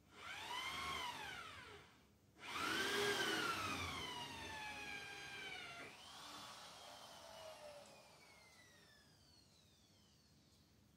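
A cat giving drawn-out meows: a call that rises and falls in pitch, then after a short break a louder, longer one that slowly falls away and fades.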